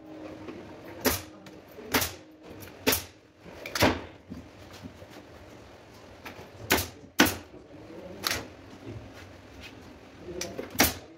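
Pneumatic upholstery staple gun firing staples through fabric into a wooden sofa frame: sharp single shots, four about a second apart in the first four seconds, then a few more spread out later.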